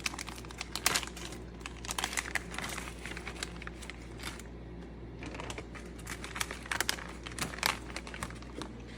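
Plastic packaging crinkling and rustling in irregular bursts as raw venison backstrap is unwrapped.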